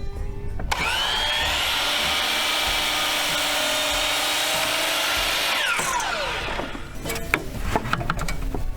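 Electric power saw spinning up with a rising whine and running steadily as it cuts a wooden shelf board, then winding down with a falling whine. Several knocks and clatters of wood follow near the end.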